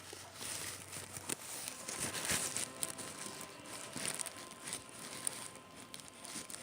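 Play-Doh being squished and worked with lotion by hand: irregular sticky crackling and crinkling with many small snaps.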